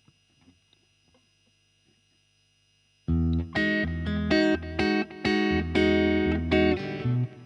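Faint steady amp hum with a few small clicks. About three seconds in, a DIY Telecaster Thinline electric guitar starts playing clean chords and notes through tube amps, a hand-built Fender Tweed Deluxe 5E3 and a Laney Lionheart, with light delay.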